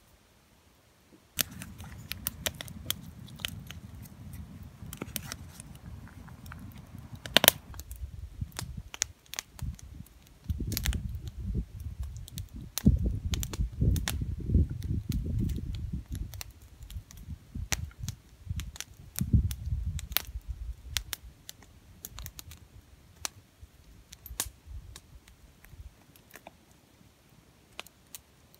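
Small campfire crackling with scattered sharp pops, over an uneven low rumble that swells and fades. It starts suddenly about a second in and thins out near the end.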